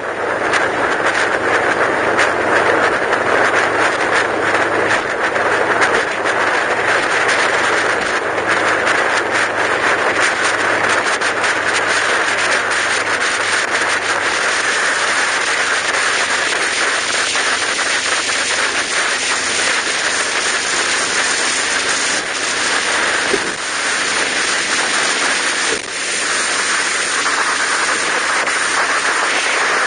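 Steady road and wind noise from a vehicle driving at highway speed, with a faint low engine hum underneath and scattered small clicks.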